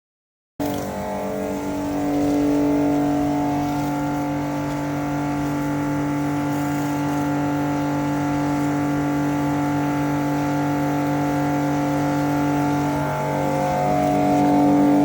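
Pressure washer running steadily, a constant machine hum that cuts in abruptly just after the start, with a brief dip in pitch about 13 seconds in.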